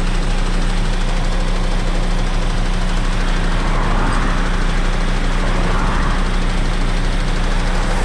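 MAN truck's diesel engine running with a steady low drone, with two faint rushing swells about four and six seconds in.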